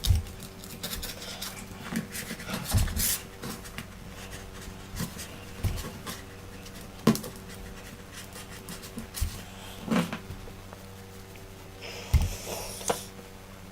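Cloth wiping and rubbing cleaner over an iPad's glass screen: irregular rubbing strokes with scattered knocks and taps from handling the tablet, and a denser hiss of rubbing near the end.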